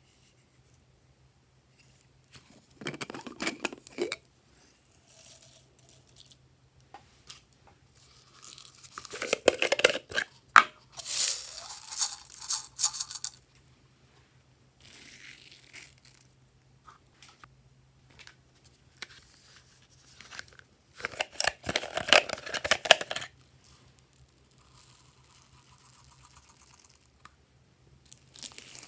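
Hands rustling and crinkling as sprinkles and foam beads are handled and poured into a glass dish of slime, in about five separate bursts, the loudest around the middle and again later on. A faint steady low hum lies underneath.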